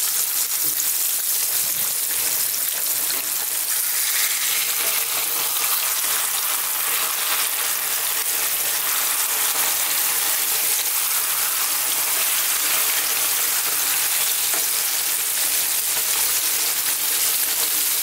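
Pieces of seasoned-flour-coated sea bass shallow-frying in hot vegetable oil in a pan: a steady, dense sizzle.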